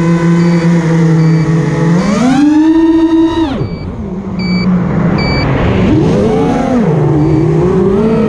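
FPV racing quadcopter's brushless motors whining on a 4S LiPo battery. A steady hum gives way, about two seconds in, to punched throttle: the pitch rises and holds, then drops sharply a second and a half later. A shorter burst of throttle follows near six seconds. Short high beeps repeat at a steady pace, clearest while the throttle is off.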